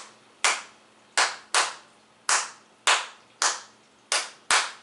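Hand claps, eight sharp claps in an uneven, syncopated repeating rhythm, marking the kpanlogo bell timeline.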